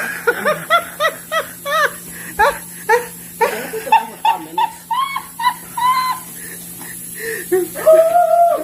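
Someone laughing hard in rapid, high-pitched bursts, then a long drawn-out voiced cry near the end.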